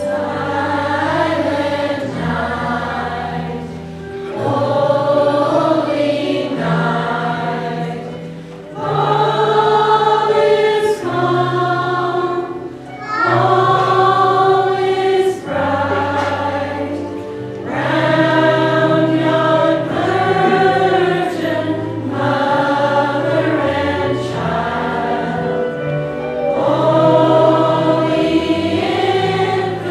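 Church choir of adults and children singing together, with instrumental accompaniment holding low bass notes beneath the voices.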